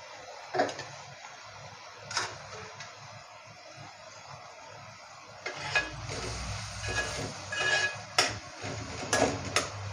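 A couple of metal clinks, then a metal spoon stirring and scraping a thick onion-tomato masala in a steel kadhai, with scrapes and knocks against the pan from about halfway in.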